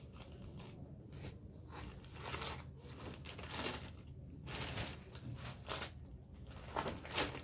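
Crinkling and rustling of a plastic garment packet and cloth being handled, coming and going in irregular bouts as garments are folded away and the next one is unwrapped.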